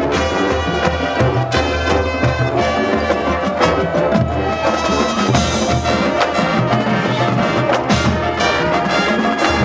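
Marching band playing live: full brass chords over drums and pit percussion.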